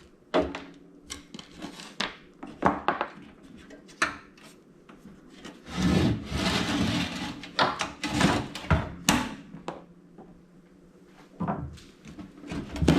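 Parts of a toaster oven being handled and pulled apart: scattered clicks and knocks, with a couple of seconds of scraping and rubbing about six seconds in.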